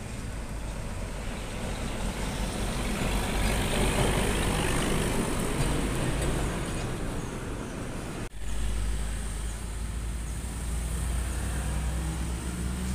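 Container trucks' diesel engines and tyres going past on a road, with lighter traffic mixed in; the noise swells as one passes close about four seconds in, breaks off suddenly around eight seconds, and picks up again as a steady low engine drone.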